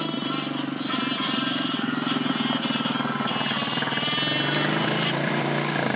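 Small 125 cc sport quad (ATV) engine running at low revs with a steady, fast pulsing beat. It falls away right at the end.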